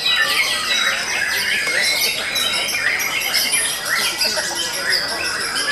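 Many caged songbirds singing at once, among them white-rumped shamas: a dense, unbroken overlap of whistles, trills and chirps.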